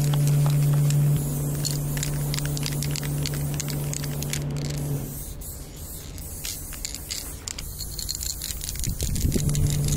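Aerosol spray-paint can hissing, with many small clicks and scrapes, over a steady low hum that stops about halfway through.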